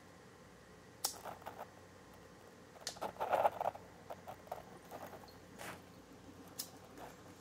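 Stündenglass gravity bong being turned over with a sharp click about a second in, then water running through its glass globes, with a scattered run of small bubbling crackles and drips, busiest about three seconds in, as the upper globe draws in smoke.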